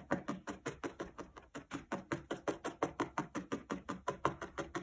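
Felting needle being jabbed rapidly and repeatedly through wool fibres and felt backing into a foam block, giving soft, even taps, about seven a second.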